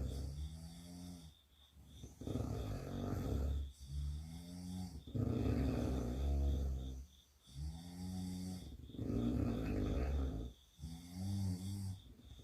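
Sleeping girls snoring: about seven snores in a row, each one to two seconds long with short pauses between them. Some are rasping and some carry a low drone.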